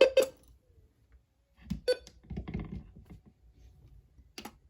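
Worn push buttons on a NOAA weather radio receiver being pressed: about four sharp clicks, with duller knocks and rubbing from handling the unit in the middle.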